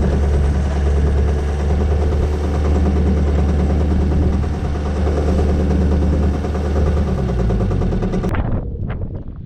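An engine running steadily at a constant speed, then slowing down and winding off about eight seconds in.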